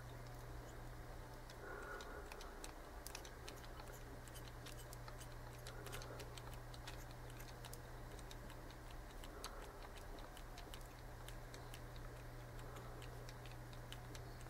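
Faint, irregular light ticking from tying thread being wrapped around a tiny dry-fly hook with a bobbin holder, building up a thread head, over a steady low electrical hum.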